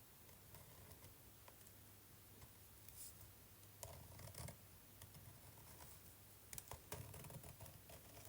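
Faint scratching of a pen tip tracing the outline of a plastic letter stencil on paper, in a few short strokes with light clicks, mostly in the second half.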